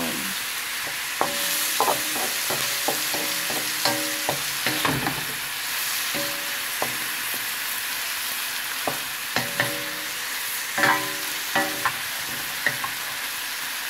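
Chicken drumsticks and chopped onion sizzling steadily as they brown in an oiled metal frying pan. A spoon knocks and scrapes against the pan at irregular moments as they are stirred, some knocks ringing briefly.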